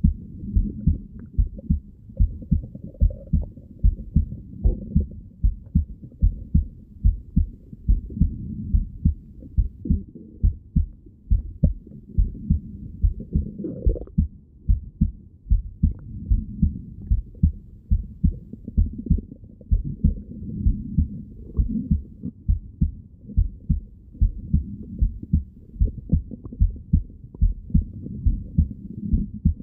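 Heartbeat heard through a stethoscope on the chest: steady, evenly spaced muffled thumps, about two a second. There is a brief higher whoosh about halfway through.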